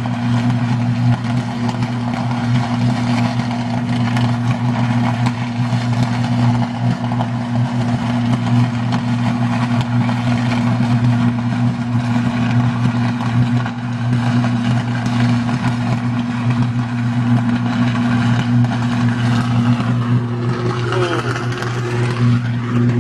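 Substation transformer short-circuiting in a sustained electrical arc: a loud, steady low buzz with a higher hum layered above it.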